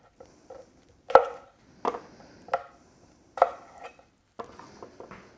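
Kitchen knife cutting baby yellow potatoes into quarters on a wooden cutting board: a run of sharp knocks of the blade striking the board, roughly one every second, with fainter cuts between.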